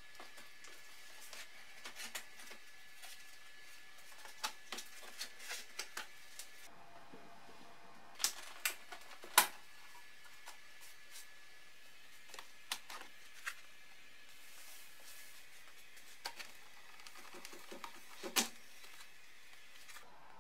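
Hard plastic clicking and knocking as the BMW E30 dashboard's black plastic air ducts and vent tubes are unclipped and pulled off the frame. The clicks come irregularly, with the sharpest snaps about nine seconds in and again about eighteen seconds in.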